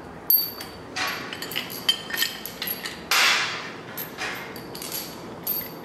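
Steel engine stand adapter arms and bolts clanking and clinking as they are moved and threaded into place, about half a dozen sharp metal knocks, some ringing briefly, the loudest about three seconds in.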